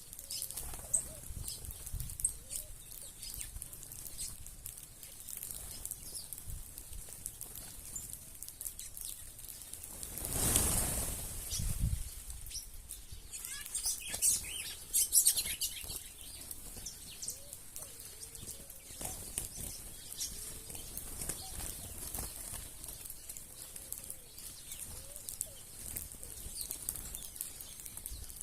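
A flock of birds feeding on scattered grain: wings flapping, scattered clicks and short chirping calls, with a louder rush of wings about ten seconds in.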